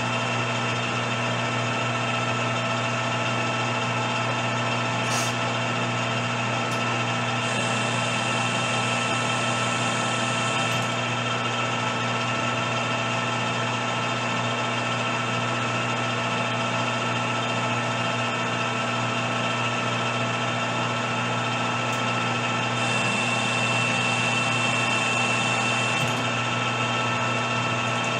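Metal lathe running steadily with a constant whine while it single-point threads a stainless steel rifle barrel tenon in light repeated passes. Twice, for a few seconds each, a higher hiss joins in as the threading tool takes a cut.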